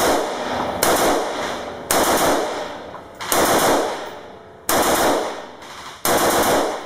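Automatic gunfire in six short bursts, each about a second long and a second or so apart.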